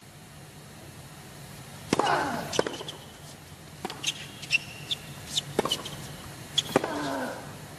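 Tennis rally on a hard court: sharp racket-on-ball strikes every second or so, with a player's short grunt falling in pitch on a shot about two seconds in and again near the end, over a low steady stadium hum.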